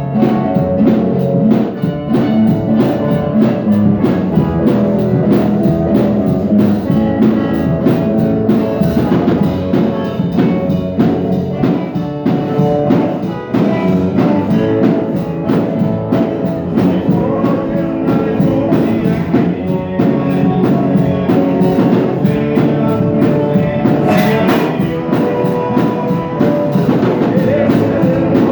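Gospel song music: a band playing with a steady drum beat under pitched instruments.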